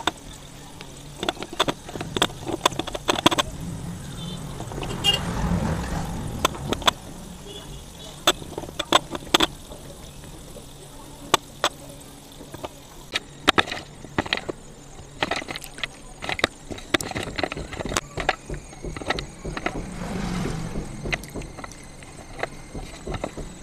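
Broken pieces of white slate clicking and clacking against each other and the metal basin as they are handled in water, with occasional soft water swishes.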